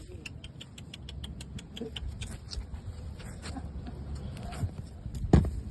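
Newborn puppies moving about, with rapid small clicks at about eight a second for the first two seconds, then scattered clicks and rustling, and one thump near the end.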